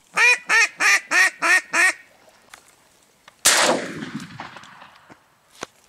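Hand-blown duck call sounding a quick run of six quacks, about three a second, followed about three and a half seconds in by a single loud shotgun blast that echoes away.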